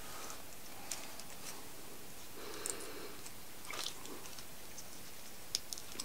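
Faint, scattered clicks and light rustling from a small plastic-and-metal brake light switch being handled and turned over in the fingers while it is taken apart.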